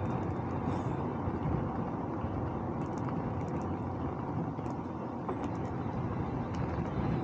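Steady low rumble of a bicycle on the move, with wind and tyre noise and a few faint ticks.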